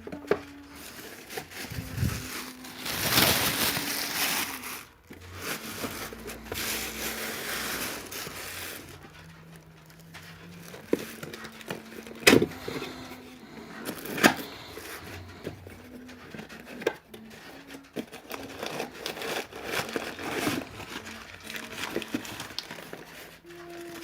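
Packaging of spare engine parts being handled: crinkling and rustling with a few sharp clicks and knocks. Faint steady tones run underneath and change pitch now and then.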